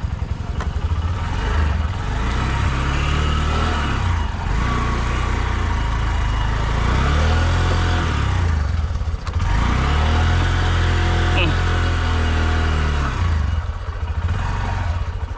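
Honda Shine motorcycle's single-cylinder four-stroke engine pulling slowly through deep mud, its revs rising and falling several times with the throttle.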